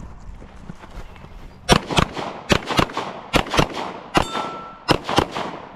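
A run of about nine gunshots, starting a little under two seconds in, mostly fired in quick pairs at a timed shooting stage's targets. A steel target rings briefly after one shot about four seconds in.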